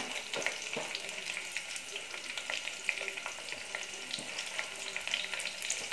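Chopped onions, green chillies, garlic and ginger frying in hot oil with cumin in a pressure cooker pan: a steady sizzle dotted with small crackles and pops, the onions just added to the hot oil.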